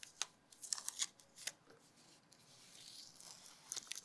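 Blue painter's tape being handled and peeled on a wooden chair rung: soft crackles and ticks, with a longer faint peeling rasp about three seconds in.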